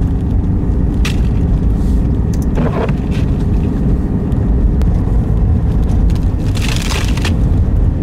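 Car driving on an icy, snow-covered road, heard from inside the cabin: a steady low rumble of engine and road noise. A few brief hissing bursts come through about one, three and seven seconds in.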